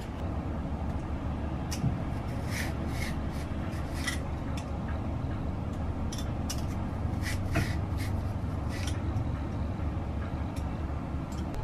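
Kitchen prep: seaweed seasoning shaken from a shaker jar, then a metal hand peeler scraping thin strips off a cucumber on a wooden board in short strokes, over a steady low hum.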